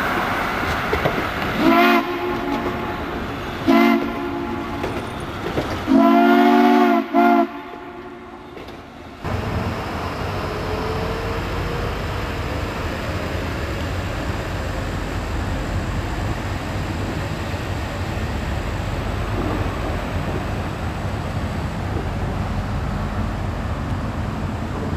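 Steam whistle of Reading & Northern 4-6-2 Pacific locomotive 425 blowing two short blasts, then a longer blast of about a second with a short one tacked on. After that, a steady low rumble of a diesel locomotive moving slowly through a rail yard.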